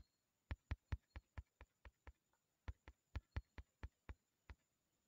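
A quick series of sharp taps on a smartphone touchscreen, about four or five a second, as an on-screen arrow button is tapped over and over. There is a short pause a little past two seconds in.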